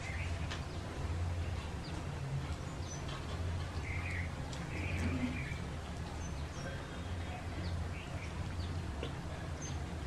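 Hand-eating sounds from two people eating khichuri: wet chewing and lip-smacking with scattered soft clicks of fingers working rice on steel plates, over a steady low hum.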